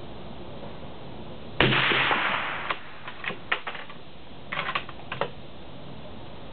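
A single shot from a moderated Howa .243 bolt-action hunting rifle about a second and a half in: a sharp crack that dies away over about a second. It is followed by a series of metallic clicks as the bolt is worked to chamber the next round.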